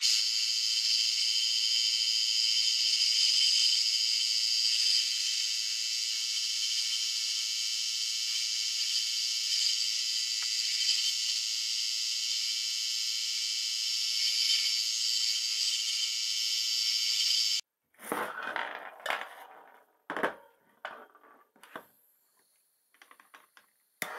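Harbor Freight mini wood lathe running steadily with a wooden file-handle blank spinning on it, a high, even whir with no bass. It cuts off abruptly about 17 seconds in, and a few short knocks and handling clatter follow.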